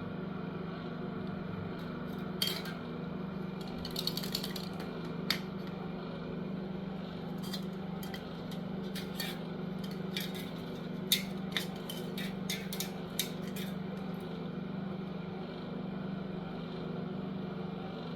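Scattered light clicks and clinks of small hard objects being handled, over a steady low hum.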